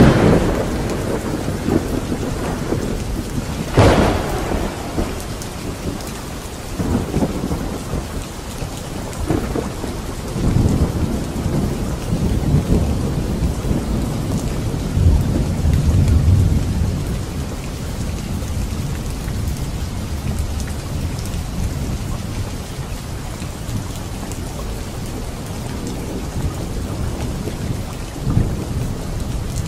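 Steady rain with thunder: a sharp crack right at the start and another about four seconds in, then long low rumbles rolling on through the middle and again near the end.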